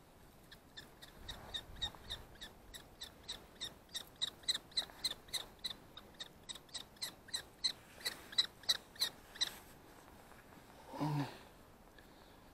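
Common kestrel giving a rapid run of sharp, high kee-kee-kee calls, about four a second, which stops about nine and a half seconds in. A short low sound follows about eleven seconds in.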